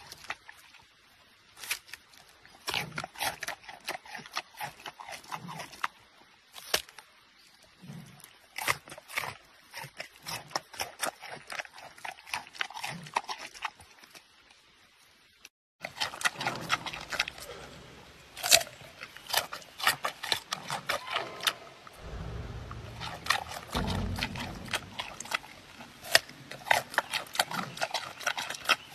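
Giant panda chewing raw pumpkin: rapid wet crunches and mouth smacks. After a short break about halfway, louder, denser crunching as a panda bites into a carrot.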